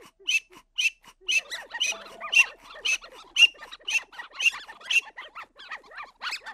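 Many short bird-like chirps and squawks, each rising and falling in pitch. They start as a steady pulse of about two calls a second and thicken, from about a second and a half in, into a dense chatter of overlapping calls.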